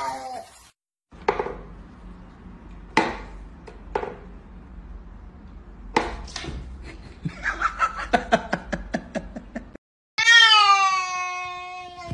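Sharp knocks and a quick run of clicks as a cat pounces on a whack-a-mole cat toy box, then, about ten seconds in, a cat lets out one long, loud yowl that falls in pitch and holds.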